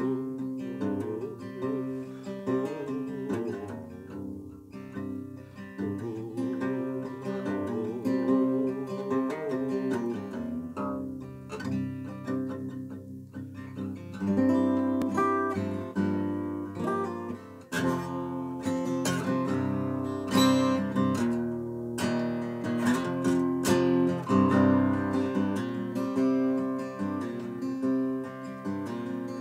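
Acoustic guitar played solo: softer picked notes at first, then louder strummed chords from about halfway.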